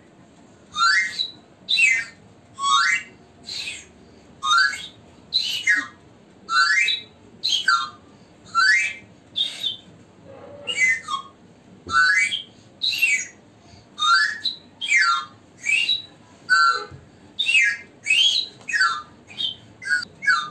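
A toy mouth organ blown in short squawking squeals, about one a second, each sliding quickly up or down in pitch.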